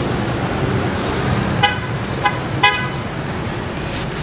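Three short toots of a vehicle horn, one and then two close together, over the steady rumble of passing road traffic.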